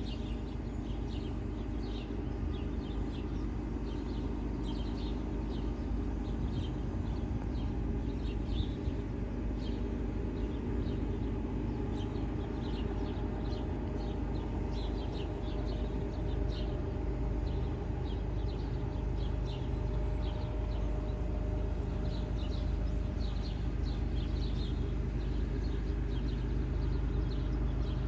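Diesel locomotives of an approaching Norfolk Southern intermodal freight train, a distant low rumble growing slowly louder. Birds chirp throughout.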